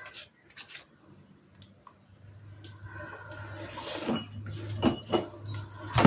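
Small paper and card pieces being handled and shifted on a craft cutting mat, with light rustles and taps, then a sharper knock near the end as a small glass jar holding glue bottles is picked up. A low steady hum comes in about two seconds in.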